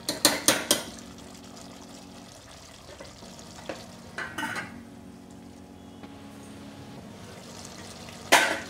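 Metal ladle scraping and knocking against a stainless steel pot, several quick clanks in the first second, then smaller clinks as a steel lid is set on. A louder metal clatter comes near the end, over a steady low hum throughout.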